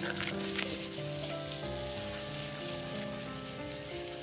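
Mushrooms, cherry tomatoes and asparagus sizzling in a hot pan over a wood fire, a steady hiss with a few faint crackles. Soft background music of held notes plays over it.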